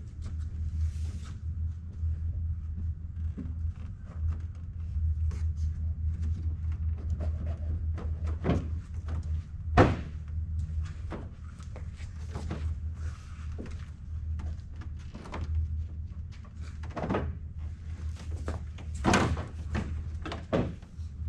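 A plastic car front bumper cover being pushed and knocked into place by hand, giving a series of knocks and thuds. The loudest comes about ten seconds in. A steady low hum runs underneath.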